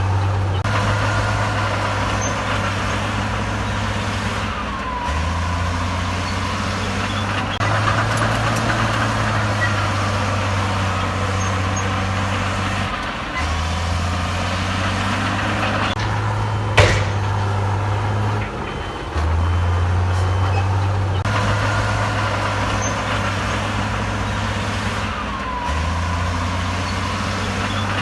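Heavy diesel earthmoving machinery running under load, its low engine note stepping up and down every few seconds. There is one sharp metallic clack about seventeen seconds in.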